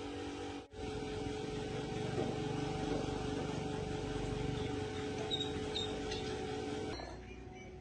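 Electric motor running with a steady hum, cut off briefly about a second in, then dropping abruptly to a quieter sound near the end.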